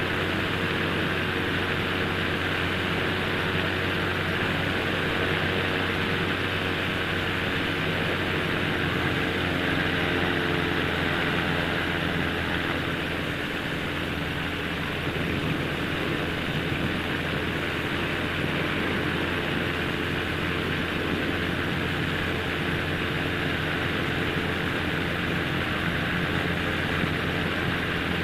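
Quicksilver ultralight's engine running steadily in flight, a constant drone under a rush of wind noise in the open cockpit.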